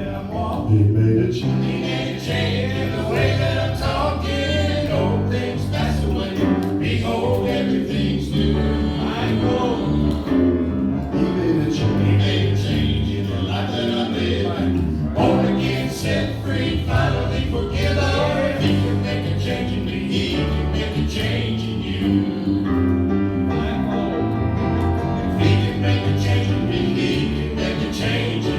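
A gospel vocal group singing with instrumental accompaniment, the voices carried over a steady bass line.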